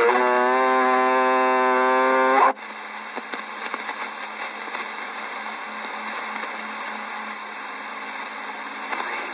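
CB radio receiver on channel 28 sounding a steady buzzing tone from an incoming transmission for about two and a half seconds, rising slightly just before it cuts off sharply. Then the hiss of band noise and static as the signal drops away.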